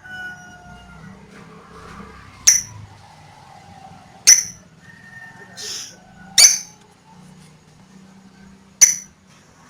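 Lovebird giving short, shrill chirps, four of them a couple of seconds apart, with fainter drawn-out whistled notes between them.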